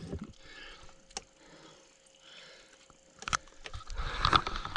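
Handling noises on a bass boat's deck as a large smallmouth bass is held and moved: a light click about a second in, a knock a little after three seconds, then louder rustling and thumps near the end.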